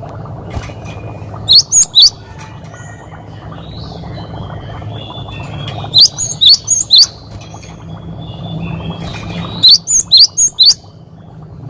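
Cinereous tit (gelatik batu) singing: loud, sharp falling whistled notes in quick runs of three to five, about a second and a half in, around six seconds in and near the end, with softer twittering between the runs.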